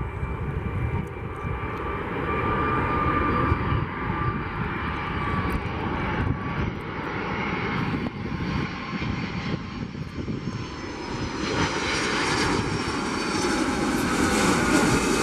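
Boeing 757-200 jet engines on final approach: a steady rumble with a high whine, growing louder near the end as the airliner comes closer.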